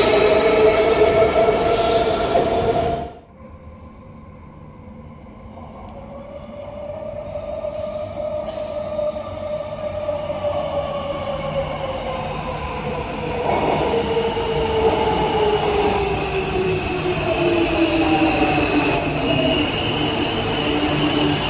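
A Metrowagonmash 81-series metro train's motors whine loudly for about three seconds, then cut off abruptly. After that an Alstom Metropolis 98B metro train comes in: its traction-motor whine grows louder as it approaches, then falls steadily in pitch as it brakes at the platform, with a thin high squeal near the end.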